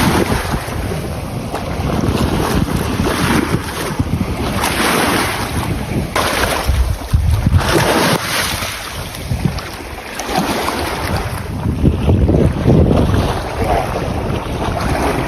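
Strong wind buffeting the microphone, with waves washing on the lakeshore in surges every second or two.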